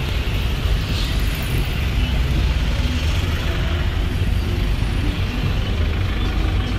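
Steady city road traffic from buses and cars at a busy junction, with a constant low rumble.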